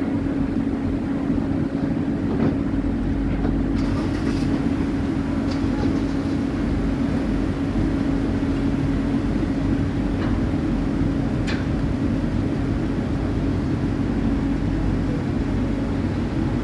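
Car ferry's engines running with a steady low drone and a constant hum, with a few faint high ticks on top.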